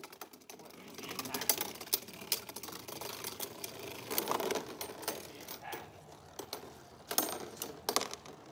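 Spinning Beyblade Burst tops, Kolossal Helios and Mirage Fafnir, clattering against each other and the walls of a plastic stadium. It is an irregular run of light ticks and knocks, with a few louder clacks about two seconds in and again near the end.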